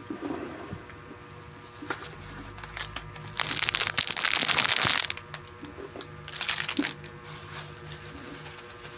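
Plastic snack packaging crinkling and rustling as it is handled, with scattered crackles, a loud rustle lasting about a second and a half from about three and a half seconds in, and a shorter one a little before seven seconds.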